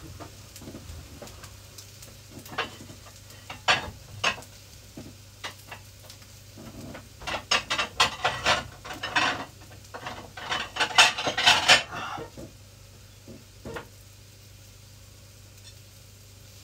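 Metal utensil clinking and scraping against a pan while fried rice is stir-fried. The strokes come scattered at first, then in two busy runs about seven and eleven seconds in, and die away after about twelve seconds.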